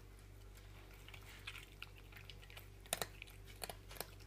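Cats eating, chewing food with scattered sharp clicks; the loudest pair comes about three seconds in.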